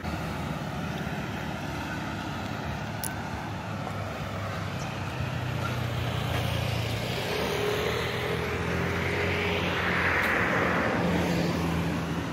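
Road traffic: vehicle engines running with a steady low hum, and one vehicle passing closer and louder near the end.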